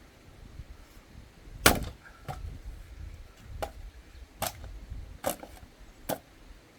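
Firewood being split with an axe: one hard, sharp blow into a log about two seconds in, followed by about five lighter wooden knocks.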